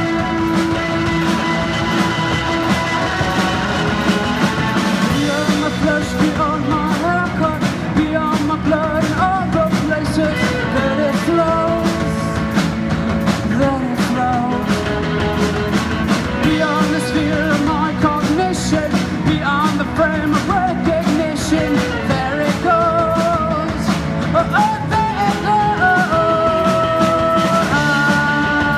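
Live rock band playing: electric guitars, bass guitar, drums and keyboard, with a steady drum beat under sustained chords. A wavering lead melody comes in about five seconds in.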